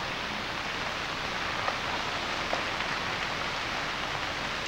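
Steady rain falling on standing floodwater, an even patter of drops with a couple of faint ticks in the middle.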